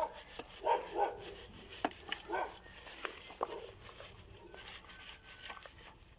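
A dog barking in short repeated barks during the first few seconds, then a few sharp knocks.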